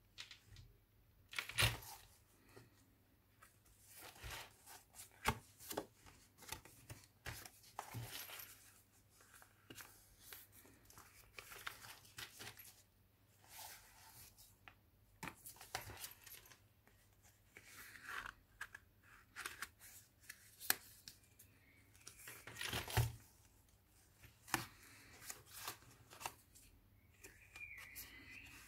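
Thick paper pages of a handmade junk journal being handled and turned: irregular rustling, page flaps and soft taps, with a few sharper, louder page turns, the loudest about a second and a half in and again around twenty-three seconds in.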